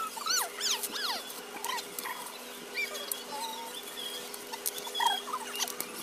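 Clear plastic packaging crinkling and rustling as it is unwrapped, with short high squeaks that rise and fall in pitch, several near the start and again about five seconds in. A steady low hum runs underneath.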